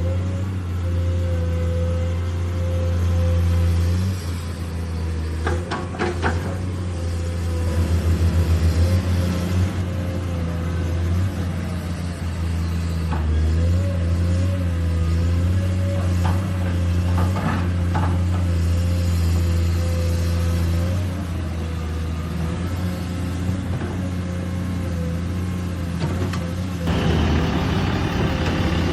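Remote-control construction models running, with a steady diesel-like engine drone. A faint whine wavers slightly above it, and a few short clicks come around a quarter of the way in and again past the middle.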